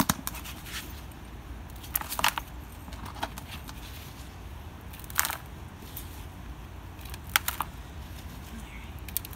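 Gloved hands digging and mixing potting soil laced with river rock and lava rock in a plastic tub: short gritty crunching scrapes, about five, a second or two apart.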